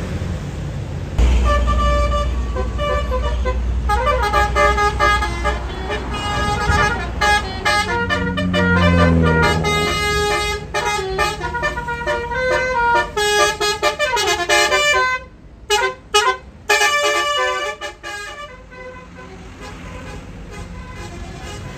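Bus's Basuri telolet horn, a multi-tone musical air horn, playing a fast tune of stepped notes over the bus's running engine. The tune starts about a second in and breaks off near the end into a few short blasts.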